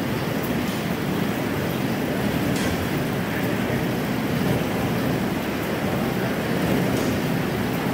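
Schrauwen bare-root tree grading machine running: a steady mechanical rumble from the conveyor line, with faint clicks now and then.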